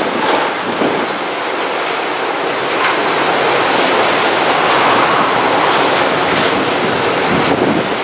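Typhoon-force wind rushing steadily over rooftops, wires and antennas, growing louder around the middle.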